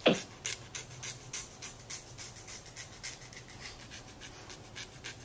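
Nail file rasping on a capuchin monkey's fingernails in short scratchy strokes, about three a second. A brief loud sound sweeping down in pitch comes right at the start.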